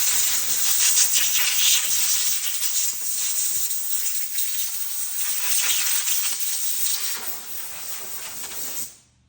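Compressed air hissing from a blow gun as it blows grime out of a chainsaw's bar-oil port and bar mount. The hiss wavers in strength and cuts off sharply near the end.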